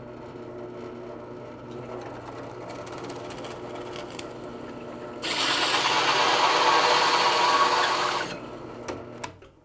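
Drill press running with a hole saw: the motor hums steadily, then from about five seconds in the hole saw bites into plywood for about three seconds with a much louder cutting noise, cutting only deep enough to mark the hole. The motor stops near the end.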